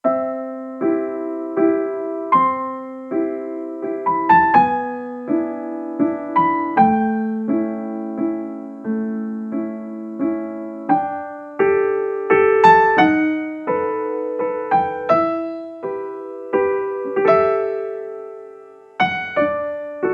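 Solo piano music: a slow melody of single notes and chords, each struck and left to fade, about two notes a second.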